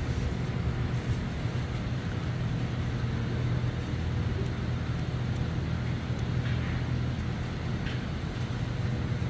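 Steady low hum of the room's background noise, with a couple of faint clicks in the second half.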